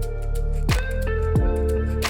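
Background music: steady held tones over a beat, with deep falling sweeps about every half to one second.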